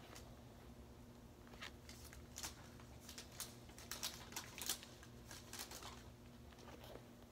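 Faint, scattered scratchy scuffs as a suede Adidas Gazelle sneaker rubs against the other shoe, a handful of short rustles in the middle seconds, over a low steady hum.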